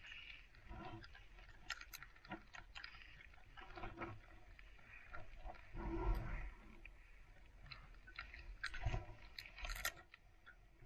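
Snow crunching close to the microphone: irregular footsteps on a packed-snow path, with a louder crunch about six seconds in as a clump of snow is handled right by the camera.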